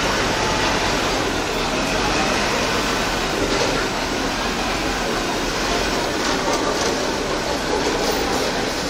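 Double-decker bus driving slowly past at close range, its diesel engine running with a steady, even noise.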